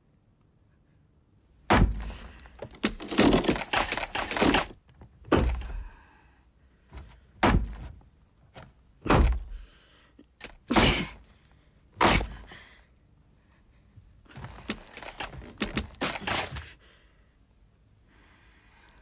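Heavy thuds and cracks against a wooden door: a flurry of blows about two seconds in, then single hits every second or two, and a last flurry near the end.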